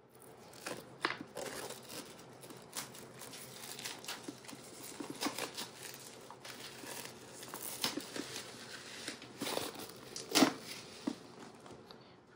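Album packaging crinkling and tearing as it is opened by hand, in a run of irregular crackles with a sharper snap about ten seconds in.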